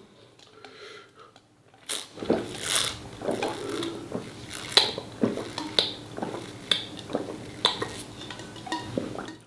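Eating at the table: dishes and utensils clinking, mixed with biting and chewing, starting about two seconds in. The second half has a string of sharp clinks about once a second.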